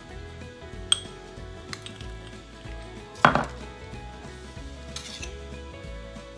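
A metal spoon clinking and scraping against a small glass jar of jam. There is a sharp click about a second in, and the loudest knock, with a brief ring, about halfway through as the glass jar is set down on the stone countertop.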